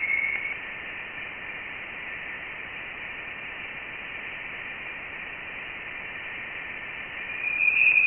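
Voyager 1 plasma wave instrument recording of interstellar plasma waves, played as sound. It is a steady hiss with a faint tone that fades within the first half second. A louder, slightly higher tone comes in about seven seconds in. The pitch of the tone marks the density of the interstellar plasma, so the higher tone means denser plasma.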